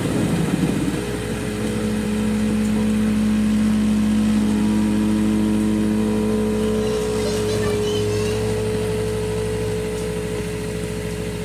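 Variable-speed blender running at about setting 7, blending a fruit smoothie: a steady motor whir whose pitch shifts slightly a couple of times.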